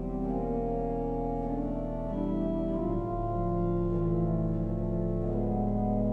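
Organ playing slow held chords, with a low bass note coming in about three seconds in.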